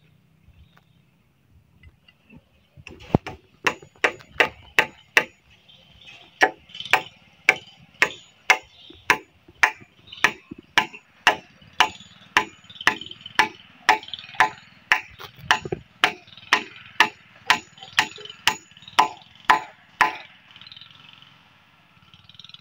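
Hammer driving nails to fix a brace in place: a quick run of about six blows, a short pause, then steady blows at about two a second that stop a couple of seconds before the end.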